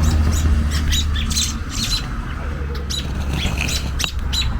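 American robins calling: a quick series of short, sharp, high squawks, about three a second, over a steady low rumble.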